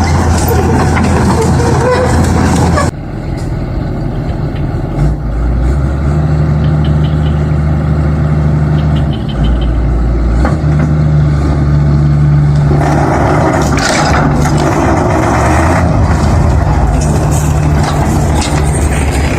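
Heavy vehicle engine running, its pitch stepping up and down several times, with an abrupt change about three seconds in.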